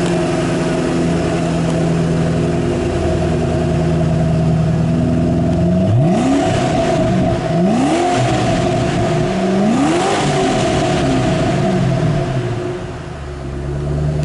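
2007 Ford Mustang Shelby GT500's supercharged 5.4-litre V8 idling, then blipped three times, each rev rising and falling back to idle before it settles again.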